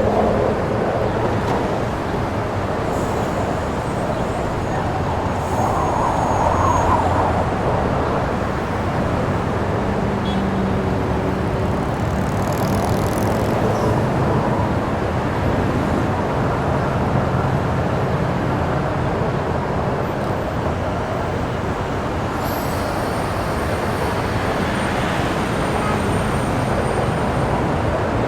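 FPV racing drone in flight: a steady rushing of its propellers and the air moving past, with faint thin whistles coming and going.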